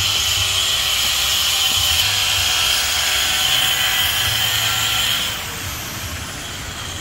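A power tool runs steadily with a high whine for about five seconds, then stops, leaving a lower background of site noise.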